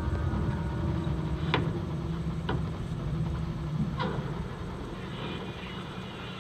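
Low rumbling drone from a horror film's soundtrack, with a steady low hum that stops about four seconds in and three sharp clicks spaced about a second apart, heard off a cinema screen.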